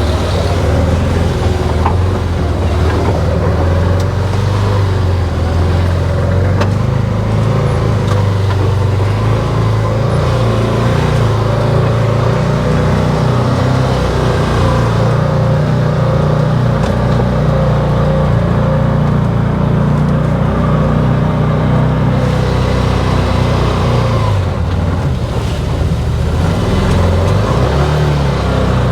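Can-Am Defender side-by-side's engine running steadily under load, a low hum that shifts down a little about twenty-four seconds in.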